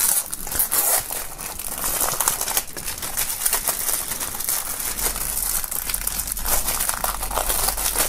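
Plastic shrink-wrap film being peeled and pulled off a CD album's cardboard slipcase by hand, crinkling continuously in a dense run of fine crackles.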